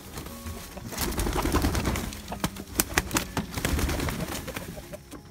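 Chickens coming out of the coop: soft low calls with wing flaps, scuffles and a run of sharp clicks as hens hop down from the door ledge. The busiest stretch is in the middle.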